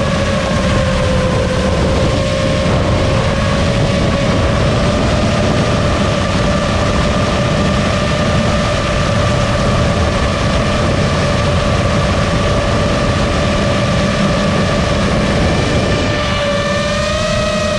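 FPV quadcopter's motors and propellers whining steadily at a held throttle, over rushing wind noise; the pitch shifts slightly near the end.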